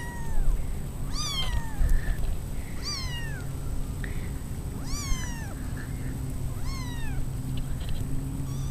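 Kittens meowing: about five short, high-pitched meows, each falling in pitch, one every second or two.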